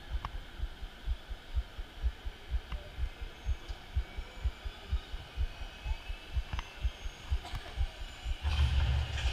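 Low, even throbbing pulse from the ride theatre's pre-show soundtrack, about three beats a second, with a few faint ticks. A deep rumble swells in near the end as the show starts.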